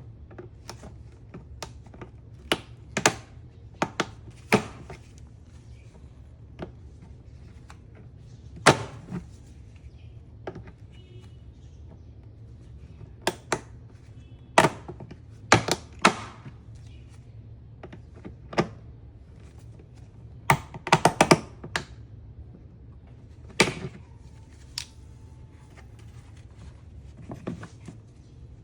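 Scattered sharp clicks and clunks of hand tools and parts being handled, with a quick rattling cluster about two-thirds of the way through, over a steady low hum.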